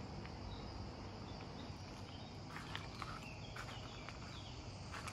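Faint steady chirring of an insect chorus in summer heat, with soft footsteps on gravel from about halfway through.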